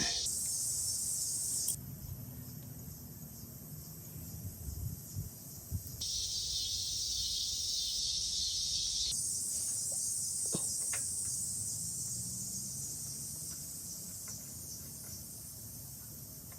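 Steady high-pitched chirring of insects such as crickets, cutting in and out abruptly, with a few faint clicks and knocks from parts being handled.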